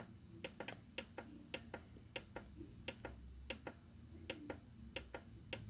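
Faint, irregular clicking of synthesizer front-panel buttons, a few presses per second, as the Korg X5 is stepped through its parameter edit pages.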